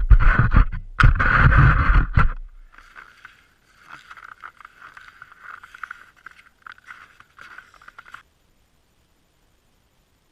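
Skate skis scraping and gliding over groomed snow, loud with a heavy low rumble for the first two seconds, then fainter, cutting off abruptly about eight seconds in.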